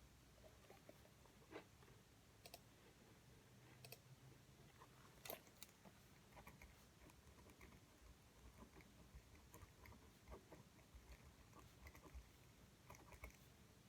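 Near silence with faint, irregular small clicks and taps, one slightly louder tick about five seconds in.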